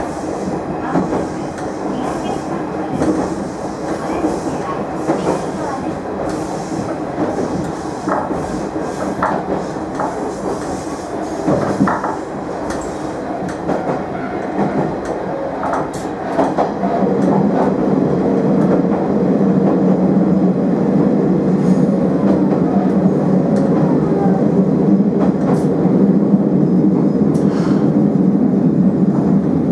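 Diesel railcar running along the track, heard from inside the car: a steady running hum with wheel clicks over the rail joints. About 17 seconds in, the hum grows louder and holds a steady low tone.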